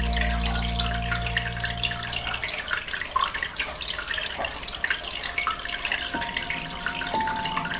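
Aquarium water bubbling and trickling steadily, with many small pops and ticks. Soft held music tones fade out early on, and faint ones return near the end.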